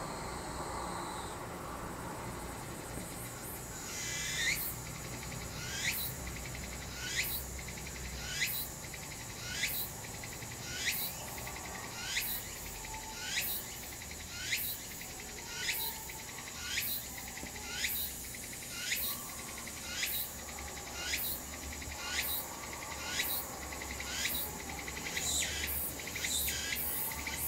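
A cicada calling: a few seconds in it starts a steady run of short calls, each falling in pitch, about one every second and a bit, a little quicker near the end, over a steady high whine.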